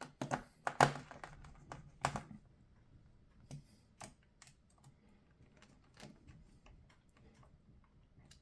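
Irregular clicks and knocks from a laptop and a screwdriver being handled as the laptop's bottom cover is screwed back on, with a few louder knocks in the first couple of seconds, then scattered lighter ticks.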